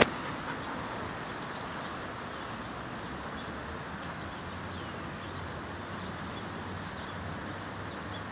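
Leaking water running steadily across muddy ground, a continuous rushing hiss, with a low traffic hum under it. A sharp click at the very start.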